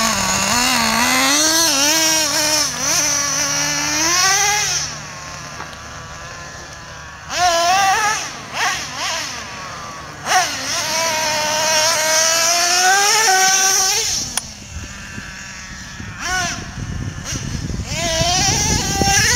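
Traxxas Revo 3.3 RC monster truck's small two-stroke nitro engine revving up and down as the truck drives, its whine rising and falling in pitch again and again. It drops back to a quieter idle about five seconds in and again near fourteen seconds before revving up once more.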